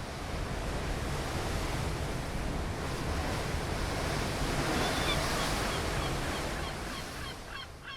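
Steady rushing noise of wind and surf, fading in at the start. A run of faint, short, high chirps, about three a second, comes in over the last few seconds.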